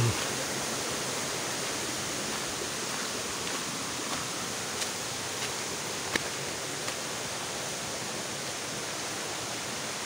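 Steady rush of a waterfall and rocky mountain stream, with a few faint light clicks around the middle.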